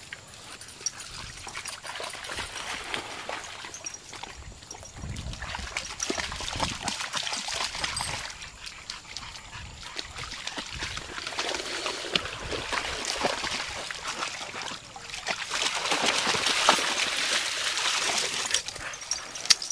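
Dogs wading and splashing in shallow pond water, an uneven sloshing and trickling with small splashes, louder in the last few seconds.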